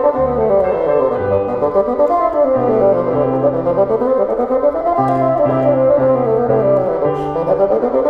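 Bassoon playing quick running passages that sweep down and back up, with piano accompaniment underneath.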